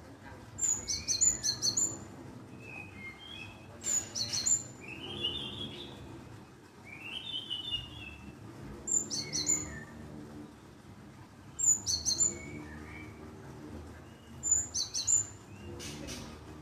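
Glatik birdsong played as a lure call: about five quick clusters of sharp, high chipping notes a few seconds apart, with softer warbling phrases between them.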